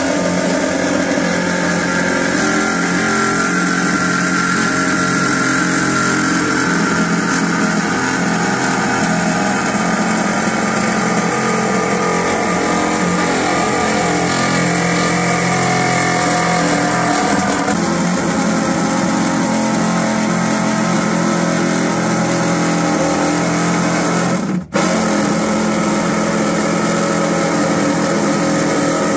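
Reciprocating saw running steadily as its blade cuts through the sheet-metal cowl panel under a truck's windshield. It breaks off abruptly for a moment near the end, then carries on.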